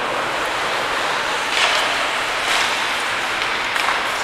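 Ice hockey skates scraping and carving on rink ice over a steady hiss, with two louder scrapes about a second and a half and two and a half seconds in.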